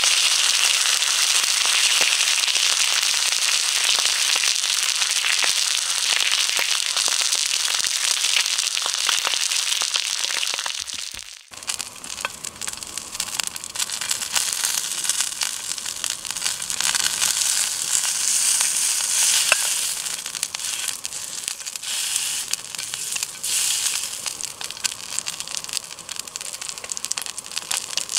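Wagyu steak sizzling in a hot black frying pan, the fat spitting with many small pops. About eleven seconds in the sound breaks off for a moment and comes back quieter and more broken, with sharper crackles.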